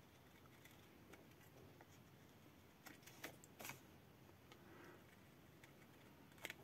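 Near silence with a few faint snips of scissors rounding off the corner of a piece of paper, the clearest around three to four seconds in.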